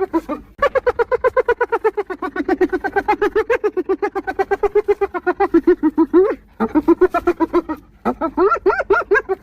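Spotted hyena giggling: long runs of rapid, pitched staccato notes, about nine a second, broken by brief pauses about half a second in and again around six and a half and eight seconds.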